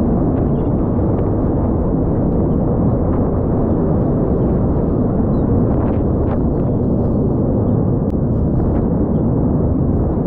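Wind buffeting the microphone: a steady low rumble with no change in level.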